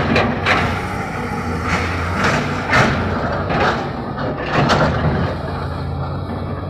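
JCB 3DX backhoe loader's diesel engine running steadily, with about eight short rushes of noise spread irregularly over its drone.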